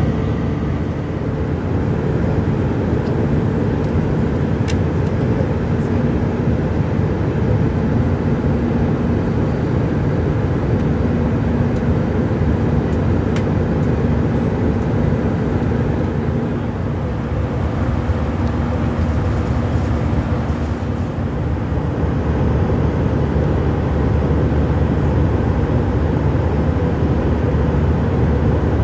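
Steady in-flight cabin drone of an Airbus A319-111, its CFM56 engines and the airflow over the fuselage heard from inside the cabin as a low, even roar with a faint hum.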